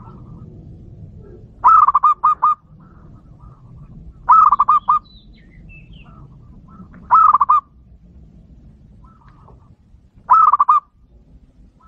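Zebra dove (perkutut lokal) cooing: four short staccato phrases, each a quick run of rapid coo notes, spaced about three seconds apart.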